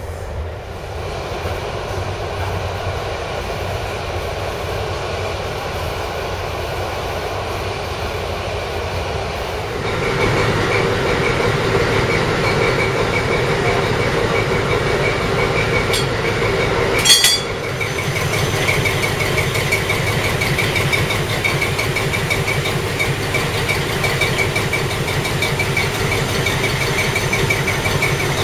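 A diesel locomotive hauling a freight train rolls past with a steady rumble. After about ten seconds this gives way to a louder steady sound: a PKP SU45 diesel locomotive idling at a standstill with a steady high whine. A short sharp hiss-like burst comes a little past halfway.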